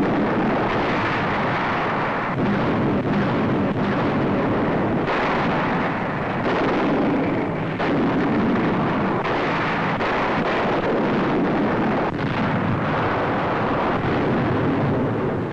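Continuous din of explosions and artillery fire, with heavy blasts breaking in now and then, on a dull 1940s newsreel soundtrack.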